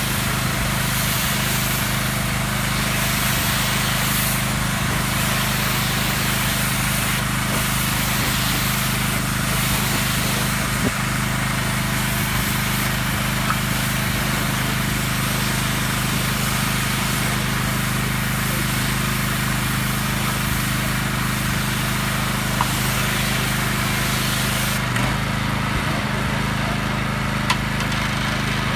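Pressure washer running with a steady small-engine hum and a loud hiss of spray. About 25 seconds in, the spray hiss drops away while the engine keeps running, as when the trigger is released.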